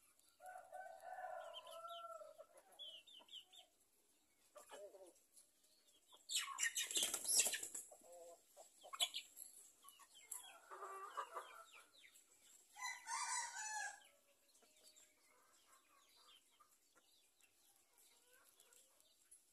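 Free-range village chickens calling and clucking in a series of separate calls, the loudest a harsh burst about six seconds in and another about thirteen seconds in; the calls die away after about fourteen seconds.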